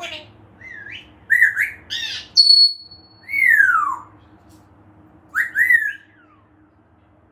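African grey parrot whistling: a run of short rising-and-falling whistles, a high held note a little over two seconds in, then a long falling whistle, and a final pair of rising whistles near the end.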